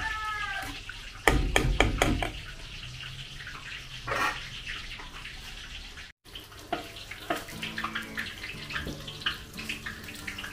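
A metal ladle stirring thick kare-kare sauce in a large aluminium wok, clinking sharply against the pan several times about a second in. Then lighter kitchen clatter over steady background noise.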